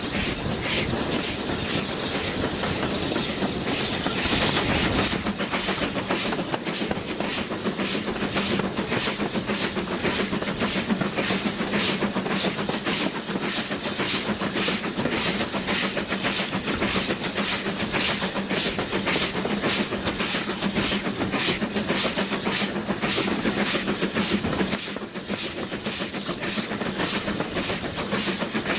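Steam-hauled passenger train running along the line, heard from a carriage window: a steady rumble with a regular beat of exhaust chuffs and wheel clicks over the rails. The sound dips briefly near the end.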